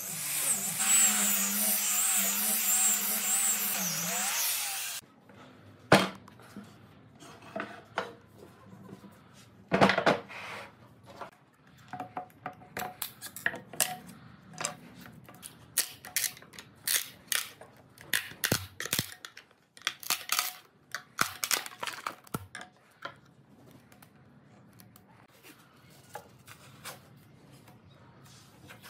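A handheld disc sander runs steadily for about five seconds, sanding an epoxy-filled pine tabletop, then cuts off suddenly. After that come many irregular sharp taps and knocks, a claw hammer tapping a wooden strip laid over foil on the tabletop, thinning out near the end.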